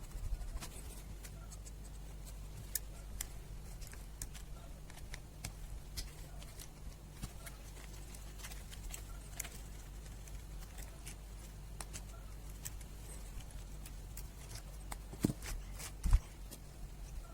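Scattered small clicks and scratches of hand work at a bench, over a steady low hum, with two louder knocks near the end.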